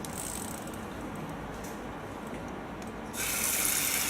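Faint clicking and handling noises, then about three seconds in a shower head is turned on and sprays water in a steady hiss.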